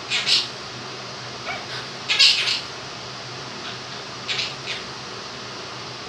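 Quaker parrot (monk parakeet) giving a series of short, high-pitched squawky calls, about four or five bursts with the loudest about two seconds in. A steady electric fan hiss runs underneath.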